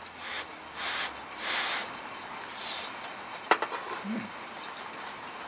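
A person eating hot oden and drawing breath over it: four short breathy hisses in the first three seconds. A sharp click follows, then a brief low hum.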